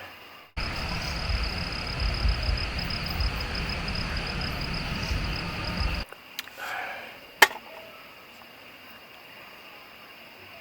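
A loud, steady rushing noise with a rapid, evenly pulsing high insect trill over it. It cuts in about half a second in and stops suddenly about six seconds in. Quieter outdoor ambience follows, with one sharp click.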